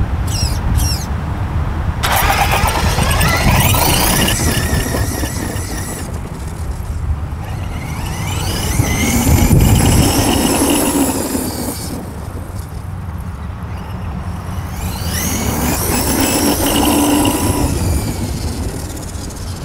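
Traxxas E-Revo 2.0 RC monster truck's brushless electric motor and drivetrain whining as the truck speeds across sand. The whine rises and falls in pitch over three passes, over a steady low rumble of wind on the microphone.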